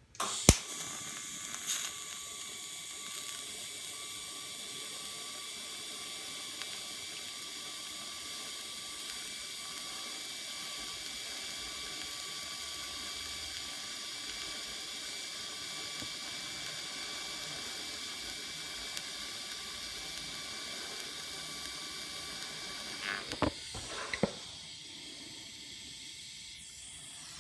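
TIG welding arc. It strikes with a sharp crack about half a second in, then runs as a steady hiss and buzz for over twenty seconds while the weld is laid. It stops with a few clicks near the end, after which a fainter hiss goes on.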